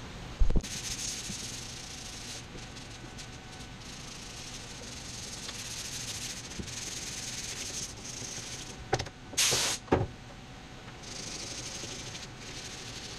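Hand sanding hardened body filler on a van roof with a sheet of sandpaper: a scratchy rasp that comes and goes in stretches of strokes. A thump about half a second in and a short, louder rush of noise at about nine and a half seconds.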